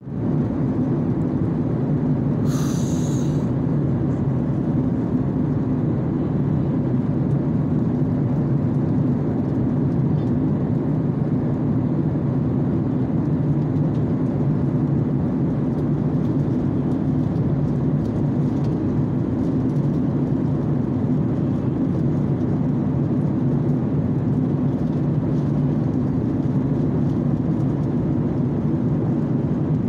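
Steady cabin drone of a jet airliner at cruise, engine and airflow noise with a low hum, heard from inside the cabin. A brief high hiss about three seconds in.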